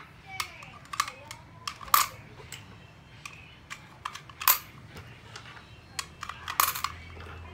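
Irregular sharp plastic clicks and knocks from a small red plastic toy gumball machine filled with foil-wrapped candy balls as it is handled and jostled. The loudest knocks come about 2 seconds and 4.5 seconds in.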